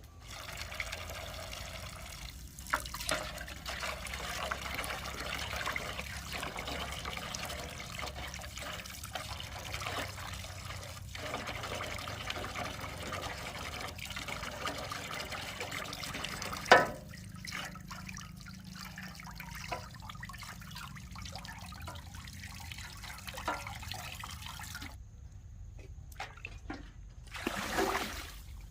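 Water trickling and splashing steadily, with scattered clicks and one sharp knock; the flow stops about 25 seconds in.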